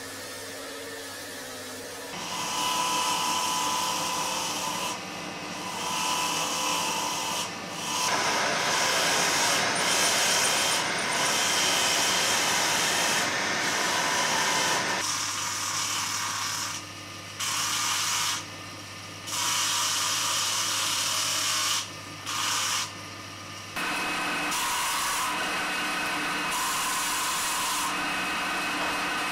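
Power-tool and hand-tool noise of soapstone being worked: a machine running while a tool scrapes and rubs against the stone, starting and stopping abruptly several times, with a low steady hum under parts of it. Near the end, a steel tool scrapes soapstone spinning on a lathe.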